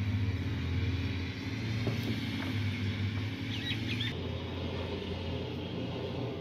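Engine of a heavily loaded goods truck running steadily as it drives slowly across a field. A few short high chirps come about halfway through.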